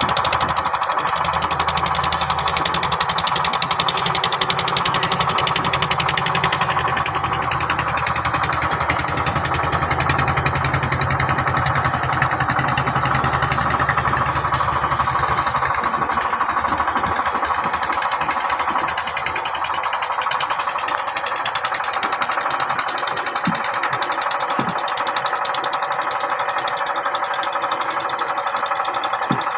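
Yamaha 15 hp outboard motor running steadily under load, a fast even rattle of firing strokes. A low drone under it drops away about halfway through.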